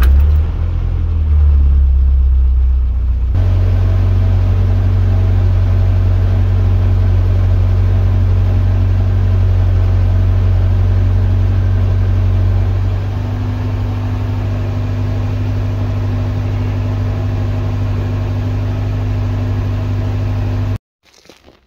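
Car engine, freshly rebuilt with a new cylinder head, idling steadily just after being started, while still cold. Its note steps up a little about three seconds in, changes slightly later on, then cuts off suddenly near the end.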